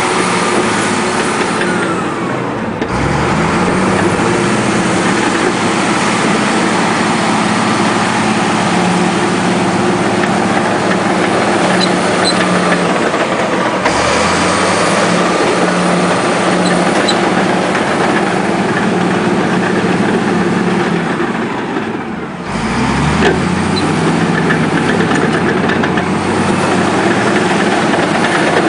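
Komatsu D83 crawler bulldozer's diesel engine working steadily with a broad mechanical clatter. It drops off briefly twice, near the start and again after about twenty seconds, and each time pulls back up in pitch.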